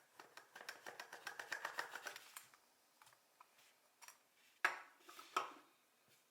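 Small tools being handled on a tabletop while Play-Doh is worked: a rapid, even run of small clicks for about two seconds, then two sharp knocks about a second apart.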